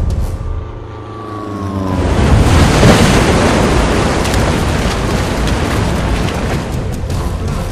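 A whine falling in pitch for about two seconds, then loud rushing, splashing water as a person thrashes about in a lake, heaviest about three seconds in.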